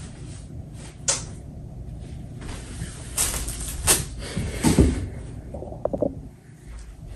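Handling noise from clothes and packaging being moved about: rustling, with a sharp click about a second in, a low thump in the middle and a few short squeaks near the end.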